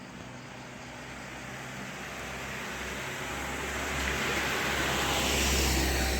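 A heavy road vehicle approaching and passing close by, its engine and tyre noise swelling steadily to a peak near the end and then starting to fade.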